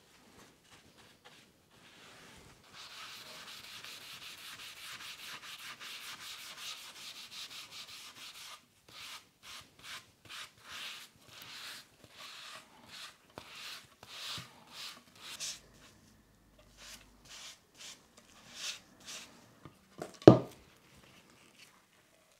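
A sponge rubbing wood stain onto a curved wooden chair backrest. It starts as a steady scrubbing for several seconds, then becomes short strokes about two a second. One loud knock comes near the end.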